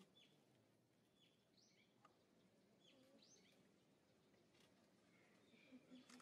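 Faint background ambience with a few short, scattered bird chirps.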